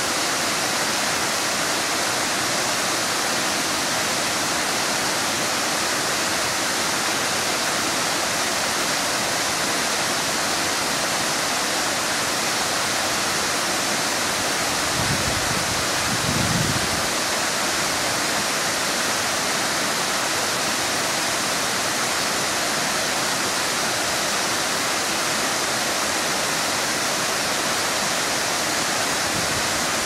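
Waterfall cascading down rock ledges into a rocky creek: a steady rush of falling water, with a brief low rumble about halfway through.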